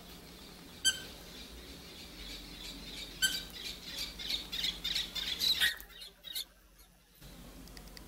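Cockatiel calling: two short, sharp chirps about one and three seconds in, then a couple of seconds of busy chattering mixed with clicks that breaks off into near quiet around six seconds in.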